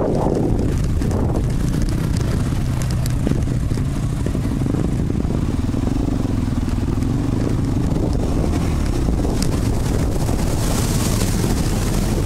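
Off-road vehicle engine running steadily while the machine rides a dirt trail, heard close up from the vehicle itself, with a few sharp knocks from the bumpy ground and a rush of wind near the end.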